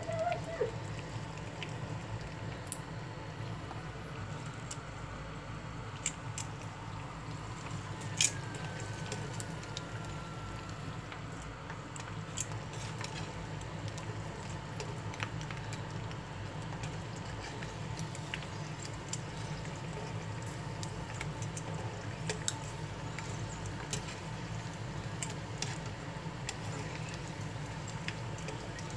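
Dried fish (buwad) frying in oil in a nonstick pan: a steady sizzle with scattered small pops and crackles, and now and then a click of metal tongs turning the pieces. One sharper click about eight seconds in is followed by a brief falling squeal.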